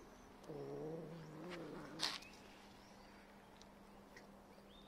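A stray cat gives one low, wavering, drawn-out meow lasting under two seconds. It is followed by a single sharp click about two seconds in.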